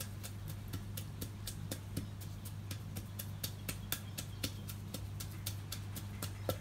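Wooden pestle pounding in a clay mortar in quick, regular strokes, crushing chilies, garlic and palm sugar down to a smooth paste.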